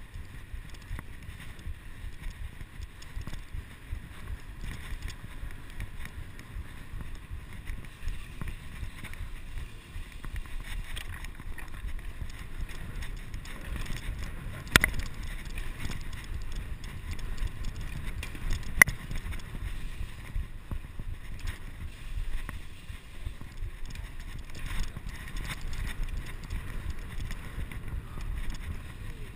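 Wind rushing over an action camera's microphone during a bicycle ride, over a steady low rumble of tyres rolling on brick paving. Two sharp clicks stand out, about halfway through and again about four seconds later.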